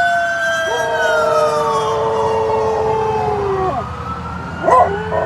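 A siren wailing, with slow falling glides in pitch, while a dog howls along in long drawn-out notes, one ending about four seconds in and another starting near the end.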